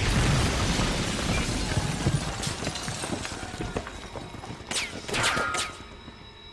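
Battle sound from a film: the rumble of an explosion fading over the first few seconds, then scattered sharp cracks of gunfire, a cluster of them about five seconds in.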